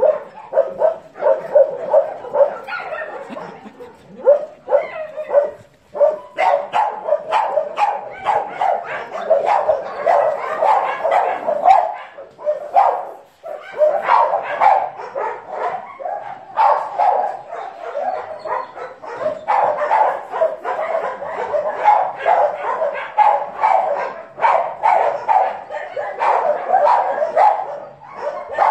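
A pack of dogs barking, many barks overlapping at several a second, with a couple of brief lulls.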